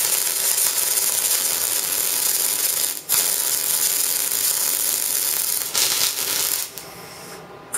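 MIG welder arc crackling steadily as the torch runs on steel plate. It stops briefly about three seconds in, starts again, and stops about a second before the end.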